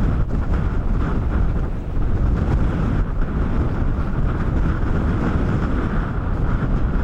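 Steady wind buffeting the microphone over the rush of water past a sailing boat's hull while under way.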